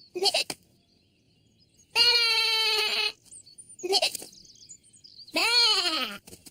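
Cartoon lamb's hiccups: two short, squeaky hics about three and a half seconds apart. Between them come two longer animal-like calls, one held on a steady pitch and one that rises then falls.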